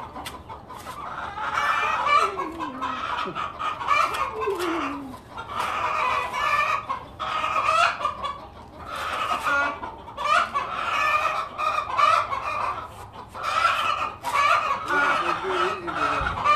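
A flock of chickens clucking and calling, with short calls following one another all through.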